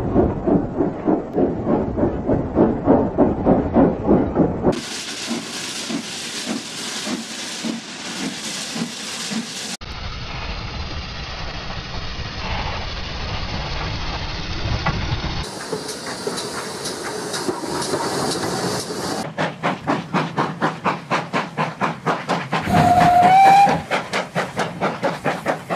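Steam locomotives working under steam, their exhaust chuffing in even beats, in several recordings that cut one into the next. Near the end comes a short, loud blast on a steam whistle.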